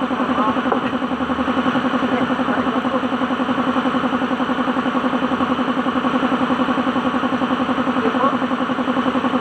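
Suzuki DA16 mini truck's small engine idling steadily, with an even, rapid pulse.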